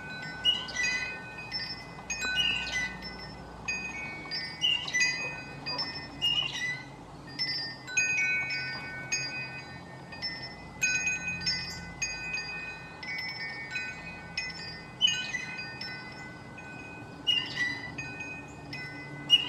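Wind chimes ringing: several fixed metal tones struck at scattered moments and left to ring on. A short, sharp gliding note comes in about every two seconds and makes the loudest peaks.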